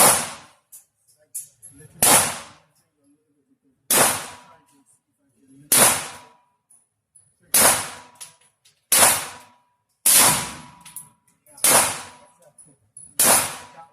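Double-barrel AR-15 rifle firing single shots at a slow, steady pace, nine shots about every one and a half to two seconds. A faint ringing tone lingers after several of the shots.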